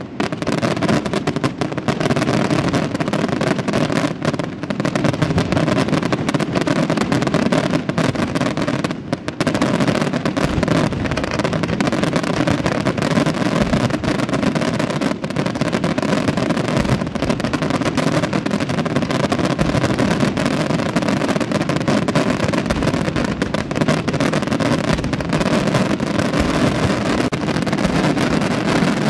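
Fireworks display: a dense, continuous barrage of aerial shell bursts and crackling effects, the bangs overlapping with no gaps between them, with a brief slight lull about nine seconds in.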